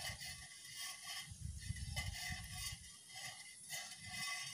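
Faint, irregular rattling and scraping from the wire eel-fishing line (ngurek) as it is held and worked at the mouth of an eel hole in wet mud, with the baited worm waiting for an eel to bite.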